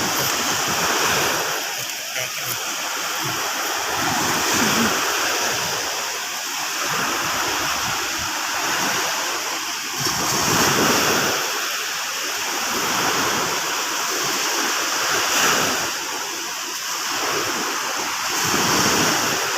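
Sea waves washing on the shore, a steady rush that swells and eases every few seconds.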